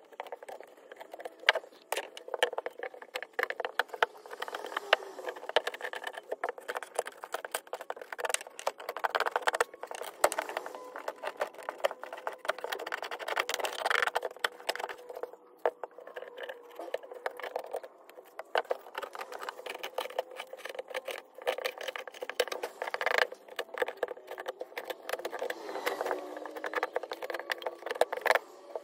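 A steel chisel scraping and gouging rotten wood and bark off a driftwood branch, in uneven bursts of rough scrapes with many sharp clicks and knocks as the blade strikes the wood and bench.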